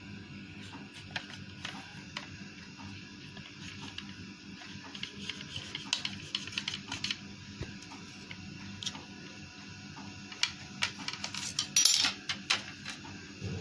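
Small knife clicking and scraping against a plastic tray as its tip cuts through a slice of white bread: irregular light clicks, with a louder run of clicks near the end.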